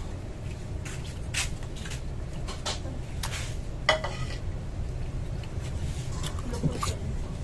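A metal spoon clinking and scraping against a plate of food, a handful of separate clicks, the sharpest about halfway through, over a steady low hum.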